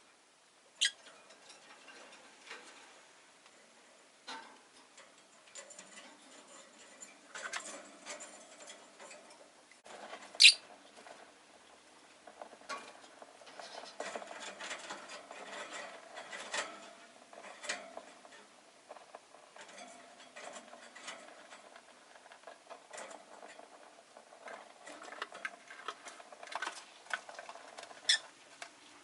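Rosy-faced lovebird making soft scratchy clicks and chatter, broken by a few sharp, very short high chirps that drop in pitch. The loudest chirp comes about ten seconds in, and others come near the start and near the end.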